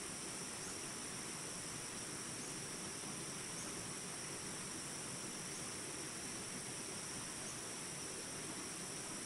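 Steady rush of flowing water, with a continuous high-pitched insect drone, like crickets, over it.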